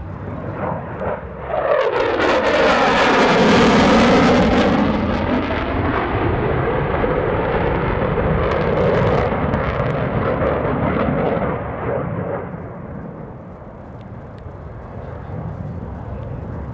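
F/A-18F Super Hornet's twin GE F414 turbofan jet engines roaring on a low flying pass. The roar swells about two seconds in with a sweeping, phasing tone as the jet goes by, holds loud, then fades to a distant rumble after about twelve seconds.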